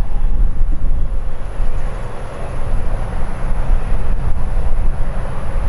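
Aircraft engines running, a loud, steady rumbling roar heavy in the low end, as a plane passes on takeoff or landing.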